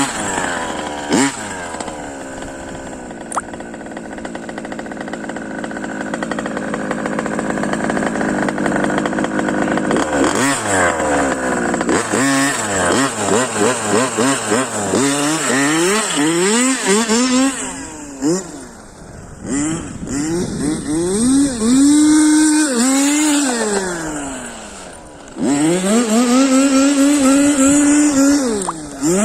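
Small two-stroke petrol engine of a 1:5-scale Losi 5T RC truck with a BZM exhaust, buzzing at high revs and then revved up and down in repeated bursts, easing off to a low idle briefly twice in the second half.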